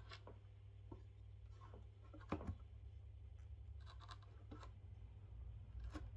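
Faint scrapes and small clicks of speaker parts being handled, the loudest about two and a half seconds in, over a low steady hum.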